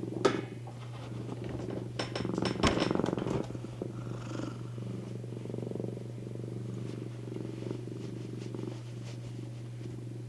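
Domestic cat purring steadily, close up, with a few short sharp clicks or knocks just after the start and again about two to three seconds in.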